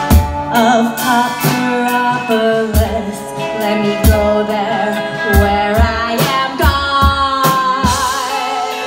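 Live rock band: a woman singing a held, wavering melody over electric guitar and a drum kit, with regular drum hits underneath.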